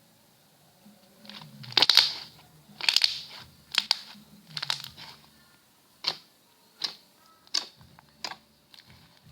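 Slime being squeezed and poked by hand, giving a series of sharp wet pops and clicks as air pockets burst. The loudest comes about two seconds in; later pops are single and sharper, about one every three-quarters of a second.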